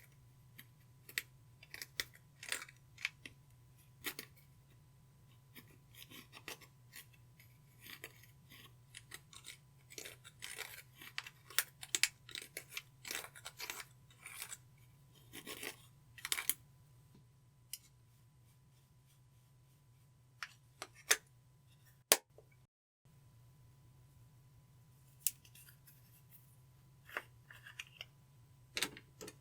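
Clear slime being squeezed, stretched and folded by hand with eyeshadow mixed into it, giving irregular sticky clicks and small pops. The clicks come thickest in the middle and thin out towards the end, over a faint low hum.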